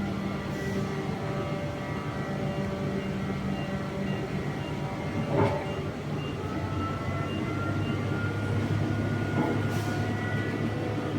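A heavy machine running steadily with a hum of several held tones, some drifting slowly in pitch, and a short sharp knock about five seconds in.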